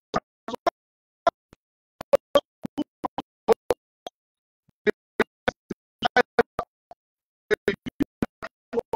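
Corrupted, dropping-out digital audio: a string of short chopped fragments of sound, each cut off abruptly, with dead silence between them, about two a second.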